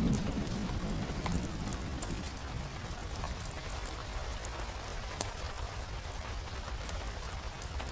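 Steady rain with scattered sharp drips and ticks, and the low tail of a thunder rumble dying away in the first second or two.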